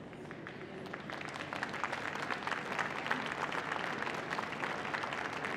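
Audience applauding, the clapping swelling over the first two seconds and then holding steady.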